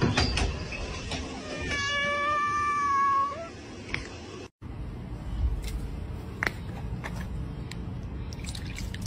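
A cat gives one long meow at a steady pitch, starting about two seconds in. After a sudden cut, only low background noise with a few faint clicks follows.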